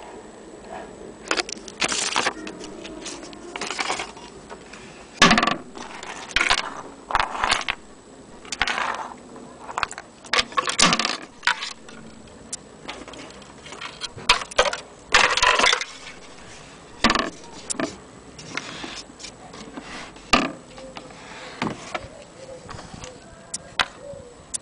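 Handling noise: irregular clicks, knocks and rustling scrapes, some short and sharp and some lasting about half a second, as the wooden radio cabinet and the camera are moved and handled.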